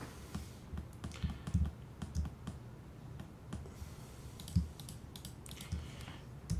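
Irregular keystrokes and clicks on a computer keyboard, with soft low thuds among them.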